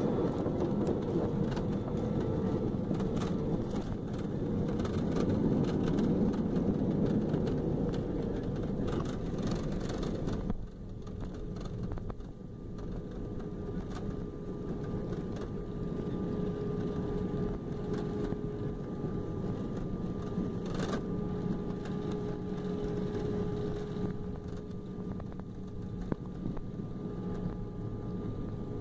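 Jet airliner cabin noise during the landing rollout: a loud rumble of engines and rushing air that drops off abruptly about ten seconds in, leaving a quieter, steady rumble with a faint hum as the plane slows on the runway. A single knock sounds about two-thirds of the way through.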